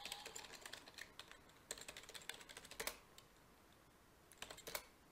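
Computer keyboard typing: runs of quick, faint keystrokes, one louder stroke just under three seconds in, a pause of about a second and a half, then a few more keys near the end.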